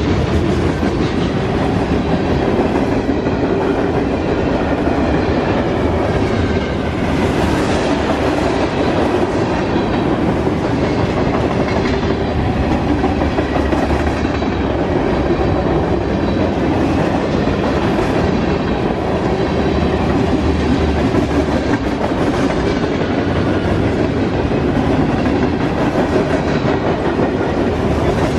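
Norfolk Southern freight train rolling past, its cars' wheels making a loud, steady noise on the rails.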